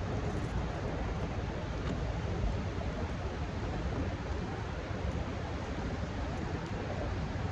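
Steady rushing noise of wind and fast-moving water, heaviest and most uneven in the low end.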